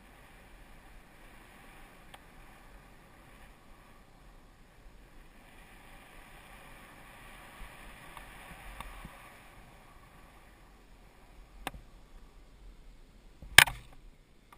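Skis running through powder snow with a soft, steady hiss that swells a little in the middle, then two sharp knocks near the end, the second much the loudest.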